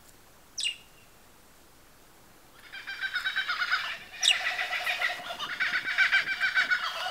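Birds calling in the bush: a single quick descending whistle, then from about two and a half seconds a dense, continuous chorus of rapid repeated chirps.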